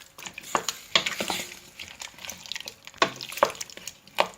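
Spoon stirring a pot of okra soup base (mushrooms, fish and meat stock), knocking against the side of the pot several times.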